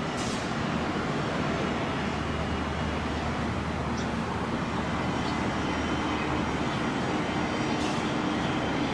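Jet engines of a UPS Boeing 747 freighter heard from afar: a steady rumble with a constant low hum, unchanging in loudness.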